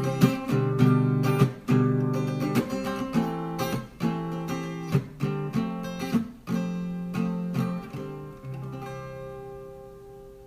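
Acoustic guitar strumming the closing chords of a song with no singing, then the last chord left ringing and fading away near the end.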